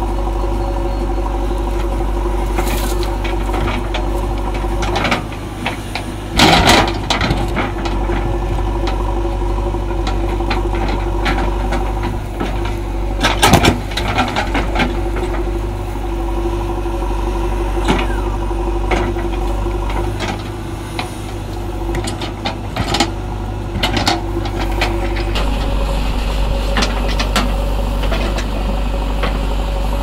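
JCB 3DX backhoe loader's diesel engine running steadily while the machine digs and loads, with loud clattering knocks about six and thirteen seconds in and a few lighter ones later, from the bucket working stony soil.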